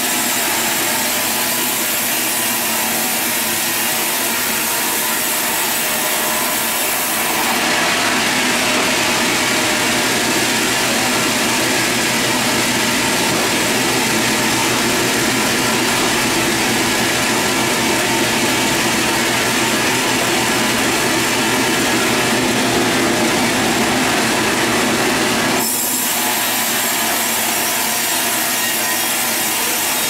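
Vertical band sawmill running steadily as its blade saws lengthwise through a log. About eight seconds in, the sound grows a little louder and hissier, and it drops back about five seconds before the end.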